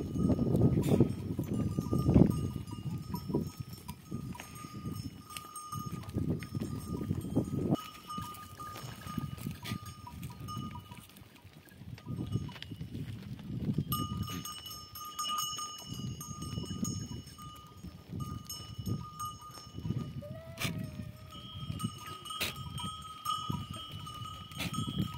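Herd of goats grazing, with goat bells ringing steadily over uneven low rumbling, loudest at the start. A single short bleat comes about twenty seconds in.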